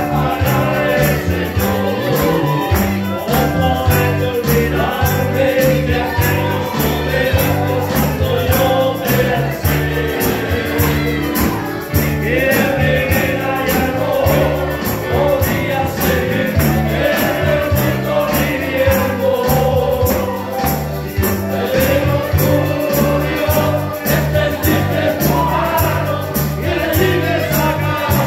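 Christian worship song with a group of singers over a band: a sung melody on a repeating bass line and a steady beat.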